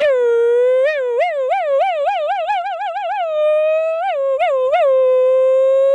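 A woman's voice holding one long, high, unbroken note as a vocal sound-effect imitation. The pitch warbles rapidly for a couple of seconds, then holds steady apart from a few brief wobbles.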